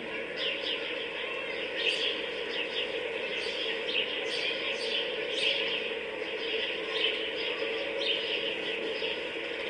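Birds chirping and tweeting continuously over a steady background hum, an outdoor park ambience.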